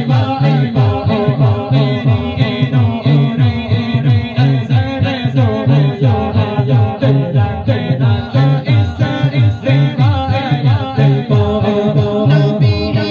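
Men singing an Urdu wedding sehra, a bride's farewell song, into microphones, over a low rhythmic pulse that repeats about twice a second.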